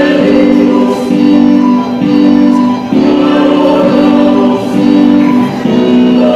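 Choir singing a sacred song with instrumental accompaniment, in held chords that change about once a second.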